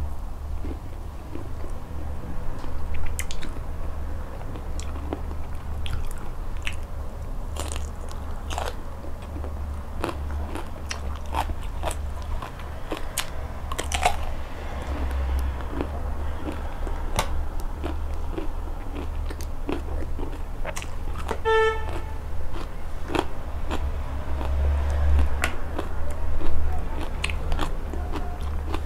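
Close-miked eating: biting into crunchy raw vegetables and raw seafood salad, chewing with repeated crunches and mouth clicks. A brief high-pitched tone sounds once about two-thirds of the way through.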